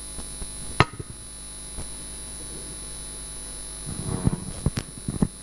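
Steady electrical hum from the sound system, with a sharp knock about a second in and a cluster of bumps and clicks near the end as a handheld microphone is passed from one person to another.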